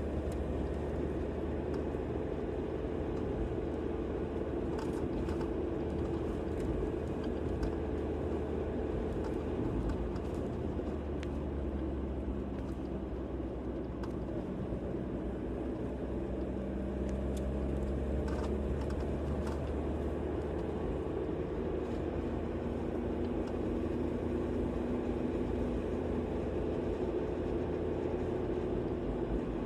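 Car driving along a road: steady engine and tyre rumble, the engine note drifting slowly up and down with speed.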